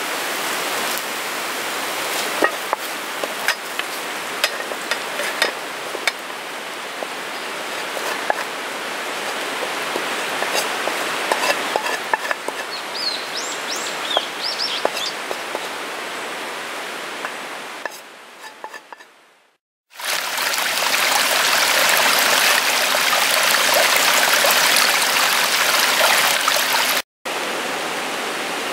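Steady hiss of food frying in an aluminium pan on a gas camp stove, with scattered clicks and scrapes of the pan and utensil and a few short bird chirps partway through. At about two-thirds of the way it fades out, and a louder steady hiss follows, broken by a brief dropout near the end.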